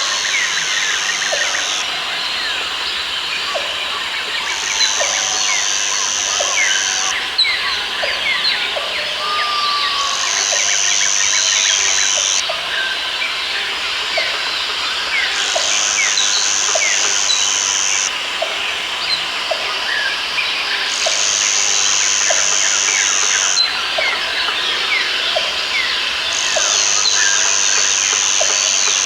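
Dense rainforest ambience: many birds chirping and calling together, with a high steady buzz that comes and goes in stretches of two to three seconds about every five seconds, and faint short calls repeating about once a second underneath.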